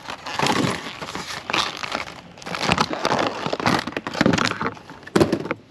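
Packaging of a new rear wiper blade being crinkled and torn open by hand, in a string of irregular loud crackling rustles.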